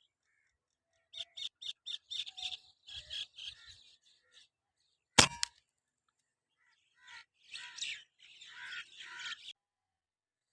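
Small birds chirping in quick runs of short calls. About five seconds in comes a single sharp shot from the P10 airgun, the loudest sound, and then the chirping resumes.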